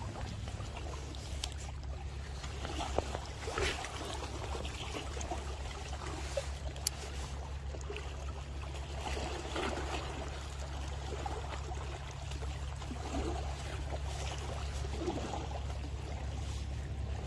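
Small waves lapping and trickling against the seawall's rocks over a steady low hum, with a couple of sharp clicks.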